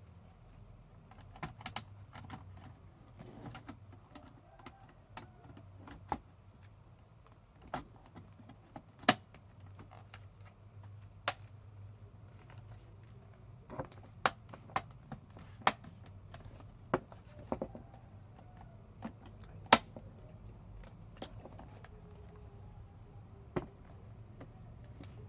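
Scattered, irregular clicks and taps on a laptop, about twenty of them, the loudest near the middle and about two-thirds of the way in, over a low steady hum.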